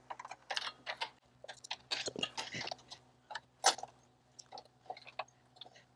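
Plastic wiring loom and plug connectors being handled and fitted around the grille's light mounts: an irregular run of small clicks, taps and rustles, thinning out in the last second or so.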